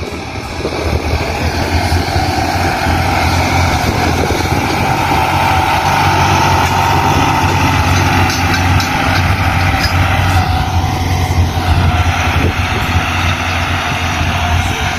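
Farm tractor's engine running steadily under load as it pulls a disc harrow through the soil.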